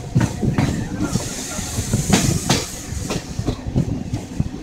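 Passenger train running along the track, heard from on board: a steady rumble with the wheels knocking irregularly over rail joints. A high hiss rises about a second in and fades before the end.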